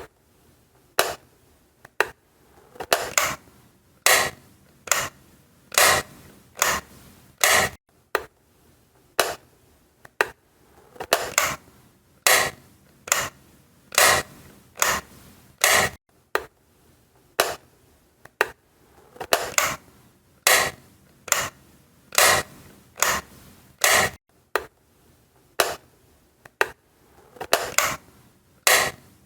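Wall light switch being flicked on and off over and over: sharp clicks, about one or two a second, often in close pairs.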